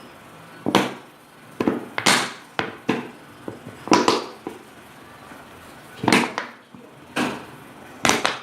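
Irregular sharp knocks and taps, about eight of them, from a plastic bottle of clear glue being knocked against a container to get all the glue out.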